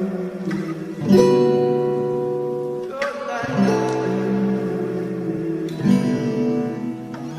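Music: guitar chords strummed and left to ring, a new chord struck every two to three seconds, in an instrumental passage of a pop song.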